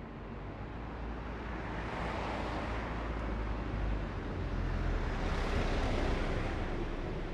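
Urban road driving ambience: a steady low engine and road rumble with tyre hiss, swelling louder twice, about two seconds in and again around five to six seconds.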